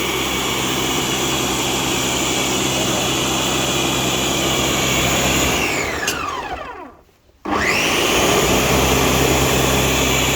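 Electric blender running loud and steady while blending mango with milk and water. About six seconds in it is switched off and its motor spins down with falling pitch, then about a second later it is switched back on and runs again.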